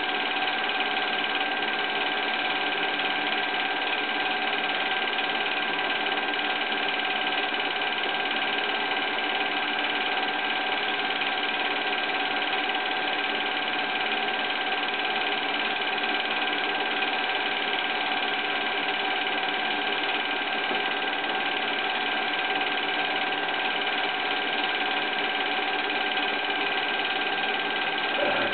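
Film projector running steadily: its motor and film transport give a continuous mechanical whir and clatter, with a short tick near the end.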